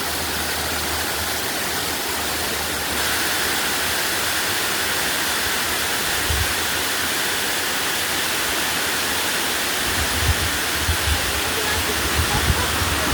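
Waterfall's water pouring down in a steady, even rush that gets a little louder about three seconds in. A few low thumps near the end.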